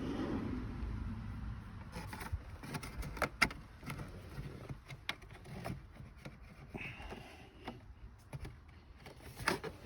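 Scattered clicks and light knocks of plastic dashboard trim and clips being worked loose by hand; the sharpest click comes about three and a half seconds in and another near the end.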